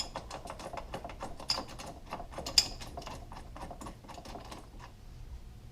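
Light, rapid metallic clicking and ticking from a bolt with washers being handled and turned in by hand, with two sharper clinks about one and a half and two and a half seconds in, thinning out near the end.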